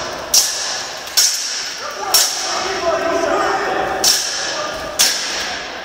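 Steel swords striking in an armoured medieval duel: five sharp metallic blows, each ringing briefly, spaced about a second apart with a longer gap in the middle, echoing in a large hall over crowd chatter.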